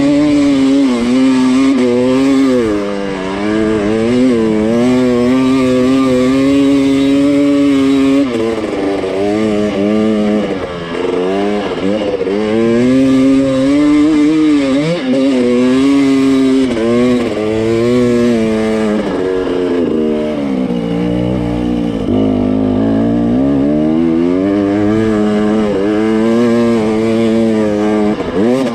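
Two-stroke KTM 300 TPI dirt bike engine working hard on a steep, loose hill climb. Its note rises and falls continually with the throttle, with a short drop in revs about eight seconds in.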